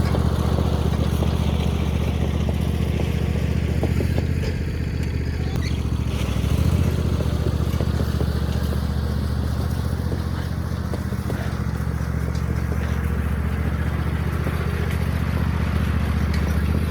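An engine running steadily at a low, even pitch, with a few faint clicks and rattles over it.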